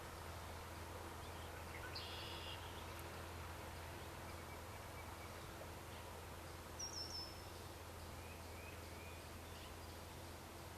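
Quiet outdoor ambience: a steady low hum and soft hiss, with birds calling now and then: one short call about two seconds in, then a quick run of three high chirps about seven seconds in and a few faint chirps after.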